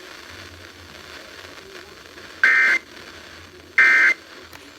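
Two short buzzing bursts of Emergency Alert System SAME data tones, the end-of-message code sent after a weather warning, the first about halfway in and the second about a second and a half later, over faint radio hiss.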